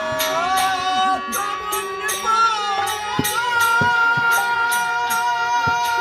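Bengali devotional kirtan music: a held, gliding melody line over steady metallic percussion strokes about three times a second, with drum beats joining after about three seconds.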